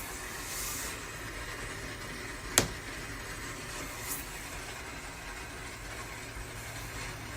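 Recorded rain-on-a-tin-roof soundscape from the Sleep Jar app: a steady hiss of rain, with one sharp, loud tap about two and a half seconds in and a fainter tap about four seconds in.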